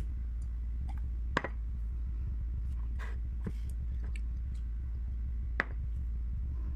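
Close-up chewing of raw garlic cloves dipped in strawberry jam, with small wet clicks and two sharper crunches about a second and a half in and near the end, over a steady low hum.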